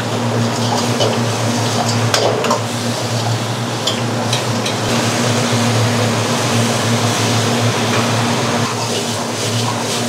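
Wok cooking over a gas burner: a steady loud rush of burner and sizzling sauce with a low hum, broken by sharp clinks of a metal ladle scraping and knocking against the wok as fried chicken pieces are tossed in the sauce.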